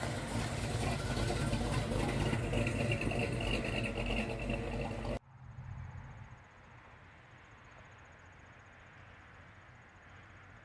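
A classic muscle car's engine running as the car drives slowly past at low revs; the sound stops abruptly about five seconds in, leaving only faint outdoor background.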